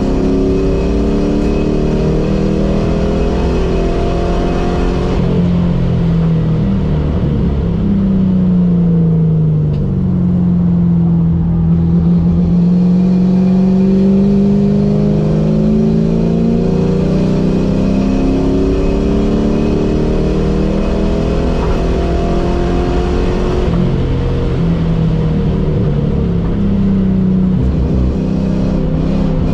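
Ford SN95 Mustang engine at track speed, heard from inside the cabin: the revs hold high, fall away after about five seconds as the car slows, then climb steadily under acceleration through the middle, dip briefly near the end and climb again.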